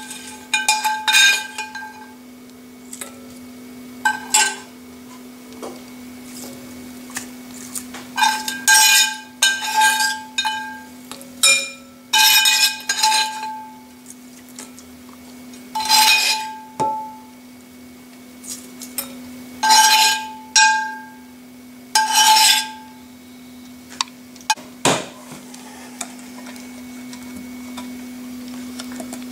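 A metal spoon scraping and clinking against a pan while spooning out a spiced oil marinade, in clusters of sharp clinks that each ring out at the same pitch, with one sharper knock near the end. A steady low hum runs underneath.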